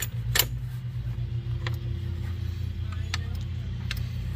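A steady low mechanical hum, with a few light metallic clicks as the metal hardware of an RV step stabilizer leg is handled and adjusted; the sharpest click comes about half a second in.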